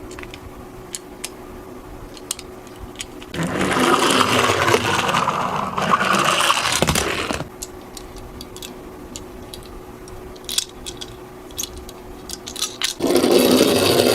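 Toy mini cars rolling down a slope, rattling and scraping loudly for about four seconds, then again near the end. Light clicks and taps of handling come in between.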